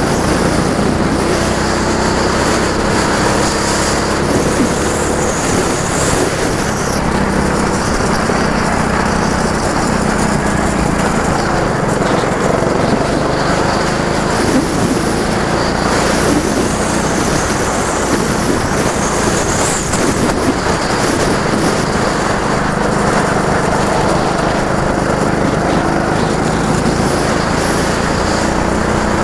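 Go-kart engine running continuously on track, its revs rising and falling as it speeds up and slows.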